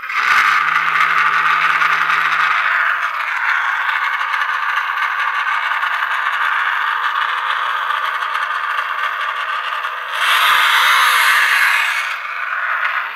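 Simulated engine sound from an RC on-board audio module, played through two small speakers in a Traxxas UDR's radiator, giving a steady, loud, rattly buzz. About ten seconds in it turns louder and harsher for roughly two seconds.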